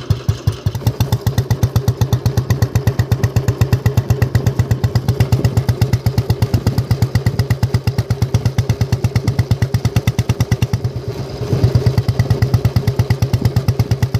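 1974 Royal Enfield Bullet's 350 cc single-cylinder four-stroke engine idling with its steady 'dug-dug' beat, about seven firing pulses a second, picking up briefly near the end.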